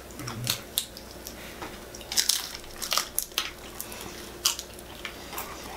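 Crisp fried Chinese takeout food being bitten and chewed: irregular crunches and crackles, the loudest clusters about two and three seconds in and another about four and a half seconds in.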